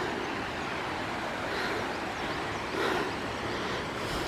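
Steady rush of water from a waterfall, an even, unbroken noise, a little louder for a moment near three seconds in.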